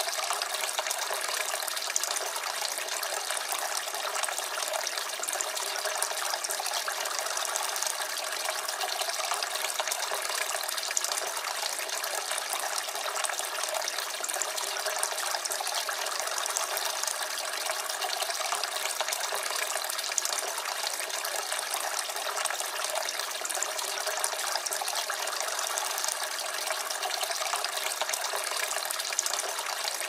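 Water from a wooden barrel garden fountain's spout pouring in a steady stream into the pool in the barrel below, a continuous even splashing.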